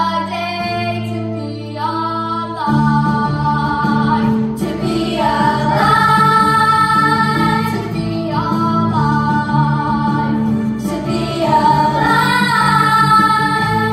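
Children's chorus singing a song from a stage musical, with a female voice out front and instrumental accompaniment holding steady low notes.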